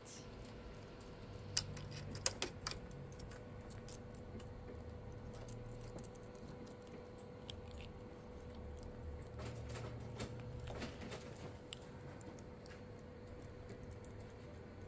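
Light scattered clicks and taps from a cat's paws and claws on a printer's plastic tray as it plays, bunched in two flurries, over a faint steady hum.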